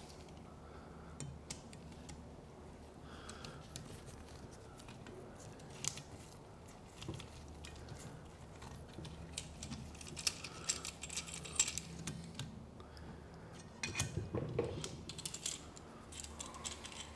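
Scattered light metallic clicks and clinks as a C-clamp valve spring compressor is handled and fitted against a boat engine's cylinder head, with a brief cluster of louder clatter near the end.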